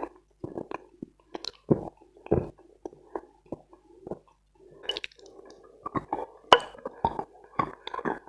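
Close-miked chewing of dense, dry Khrapovsky chalk with clay paste: irregular crunches that come thicker and sharper in the last few seconds.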